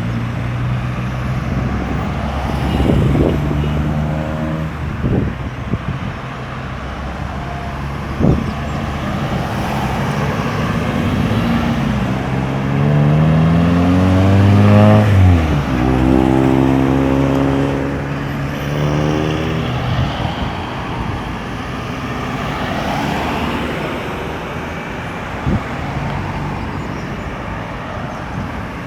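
Steady road traffic around a busy roundabout, with several engines running. About halfway through, one vehicle accelerates away: its engine climbs in pitch, drops at a gear change and climbs again. A few short knocks stand out from the traffic.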